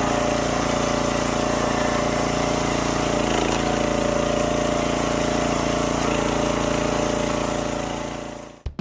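Small gas engine of a YardMax 25-ton log splitter running steadily. It fades out just before the end, where music with drums begins.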